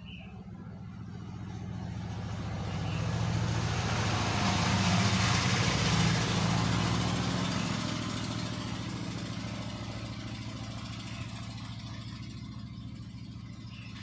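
A motor vehicle driving past, growing louder to a peak about five or six seconds in and then slowly fading away.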